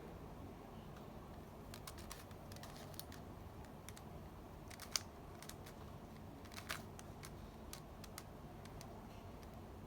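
Scattered light clicks and taps from a Rubik's cube and its packaging being handled, the sharpest one about five seconds in.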